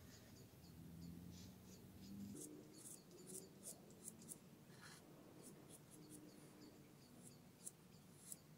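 Faint scratching of a dry paintbrush dragged over paper in short, irregular strokes.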